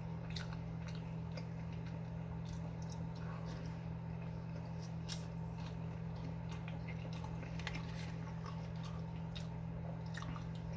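A person chewing a mouthful of burger close to the microphone: irregular wet mouth clicks and small crunches. A steady low hum runs underneath.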